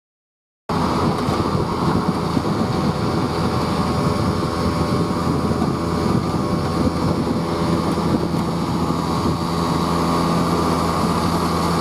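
Car engine being turned over by its starter, spinning steadily without catching, which the owner puts down to lost compression. The sound starts suddenly just under a second in.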